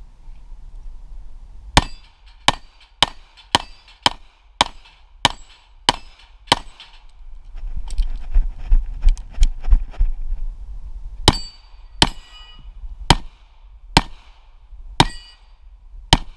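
Handgun shots at steel targets: a fast string of about nine shots, half a second apart, each followed by the ring of a steel plate. After a pause of about four seconds with handling noise, slower shots come about one a second at a Texas Star, again with steel ringing on hits.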